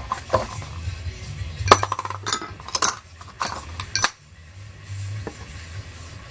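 Metal hand tools and parts clinking against each other, about seven sharp clinks spread over the first five seconds.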